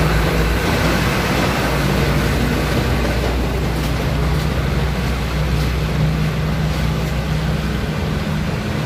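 Nissan Diesel CDA260 tronton truck's diesel engine running with a steady low hum as the truck drives off. The deep rumble thins near the end as it moves away.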